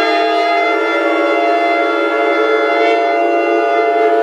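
Shofars (ram's horns) blown together in one long, steady held blast, several horns sounding at slightly different pitches.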